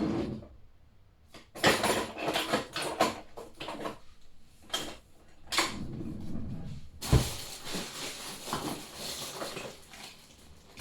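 Hard objects clattering and knocking as someone rummages through a drawer or box, with a single heavy thud about seven seconds in and steady rustling after it.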